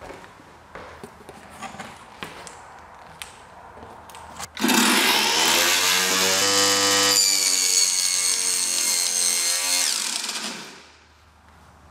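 Small prototype table saw. A few light knocks come first, then about four and a half seconds in the motor starts and the blade spins up to a steady whine as a board is pushed through freehand. Near the end the whine dies away within about a second as the anti-kickback blade brake stops the blade on kickback.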